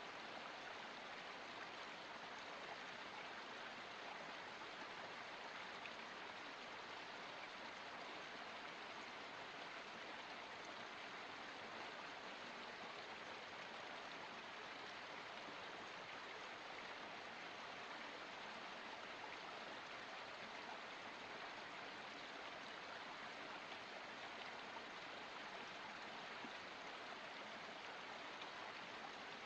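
Water of a small forest spring flowing steadily, a soft, even rush with no change.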